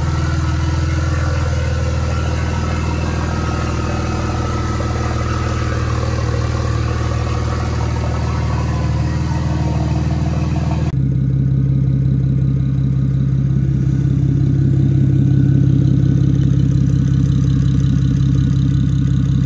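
BMW 335i turbocharged straight-six, converted to a single turbo, idling steadily; the engine note changes abruptly about eleven seconds in.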